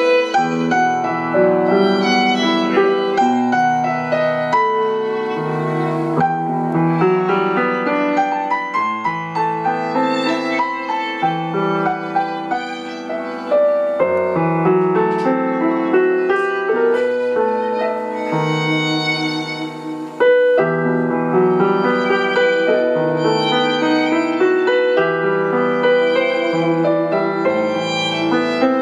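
Fiddle and stage piano playing a classical-style duet: a bowed fiddle melody over piano notes.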